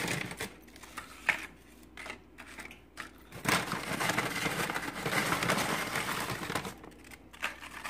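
Tortilla chips rustling and crunching as they are handled and laid into a dish: a few scattered light clicks and taps, then from about three seconds in a few seconds of dense crackling.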